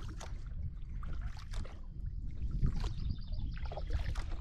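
Kayak paddle strokes with a double-bladed paddle: the blades dip into calm water and drip, with a splash and trickle roughly every second and a bit, over a low steady rumble.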